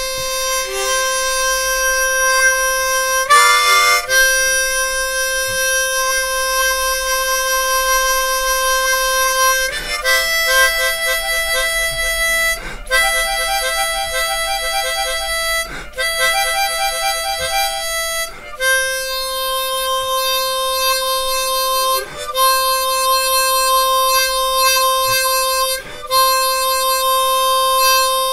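Harmonica played solo, hands cupped around it: long held notes of several seconds each, separated by brief breaks. In the middle stretch a second, higher note joins and the sound pulses and wavers.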